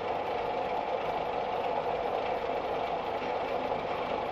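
Steady engine and road noise of a moving vehicle, holding even throughout.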